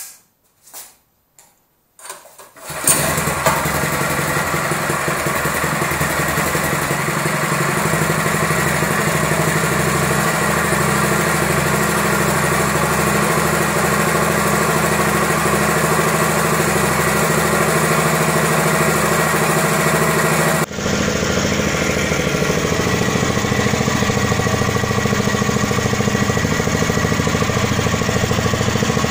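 Brand-new Honda GX-clone single-cylinder four-stroke engine being recoil-started on its first start: a couple of short pulls, then it catches about two to three seconds in and runs steadily. About twenty seconds in, the sound changes abruptly as the hiss drops away, and the engine keeps running.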